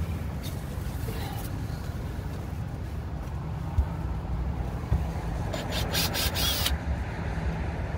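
Cordless drill-driver backing out the screws of an RV roof skylight, running in a few short bursts with a faint whine about two-thirds of the way in, over a steady low rumble.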